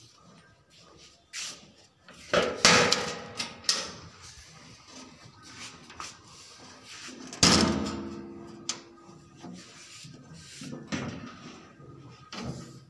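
Scattered knocks and scrapes of the HMT 2511 tractor's sheet-metal hood and panels being handled and opened, the loudest about two and a half and seven and a half seconds in. The engine is not running.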